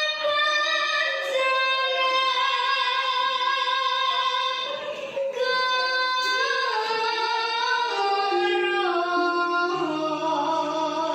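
A young girl singing a traditional Javanese song in long, held notes, the melody stepping downward over the last few seconds. A low sustained instrument note joins near the end.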